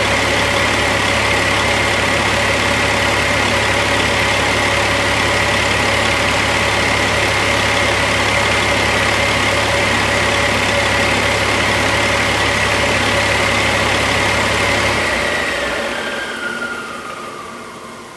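2008 Caterpillar C13 inline-six diesel engine running steadily on a test stand, with a steady high whine over the engine note. About fifteen seconds in it shuts off: the low engine sound stops and a falling whine trails away as the turbocharger spins down.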